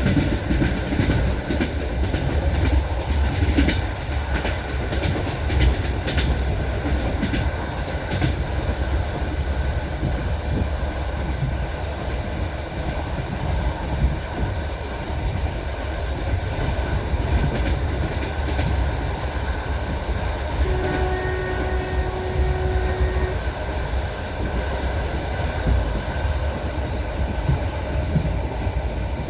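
Train wheels clattering over rail joints at speed over a steady low rumble, the clicks densest in the first eight seconds. About 21 seconds in, a short steady tone sounds for about two and a half seconds.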